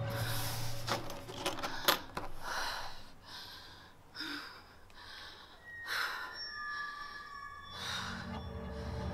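A frightened, crying woman's shaky, gasping breaths and sobs, coming in short puffs every second or so, over background music with faint held tones.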